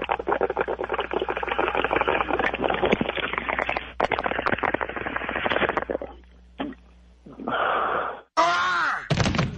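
Bong-rip sound effect used to end a call: water gurgling and bubbling through a bong for about six seconds, then a short breathy exhale. A brief, louder sound effect follows near the end.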